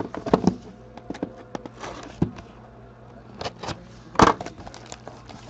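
Sealed trading card box being cut open with a box cutter and handled: scattered clicks, scrapes and rustles of blade, cardboard and plastic wrap, the sharpest snap about four seconds in.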